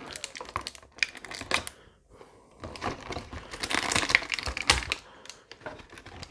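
Toy packaging being handled: plastic and cardboard crinkling with a run of sharp clicks, busiest about four seconds in.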